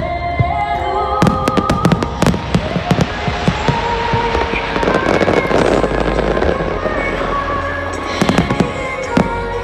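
Fireworks barrage: shells bursting in quick succession, with a dense stretch of crackling about five seconds in, over music playing along with the show.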